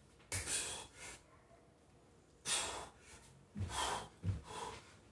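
A man breathing hard in short, forceful breaths through exertion, about four sharp exhalations spaced a second or so apart with pauses between them.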